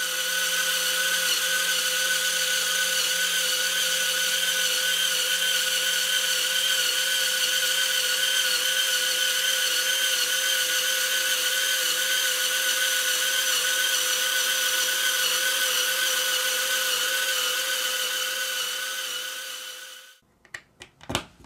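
Lego Technic model of a Napier Deltic engine, with 42 cylinders, three crankshafts and geared drive, running under a Lego electric motor: a steady whine from the motor and gearing over the whir of the plastic pistons and cranks. It fades out near the end and is followed by a few clicks.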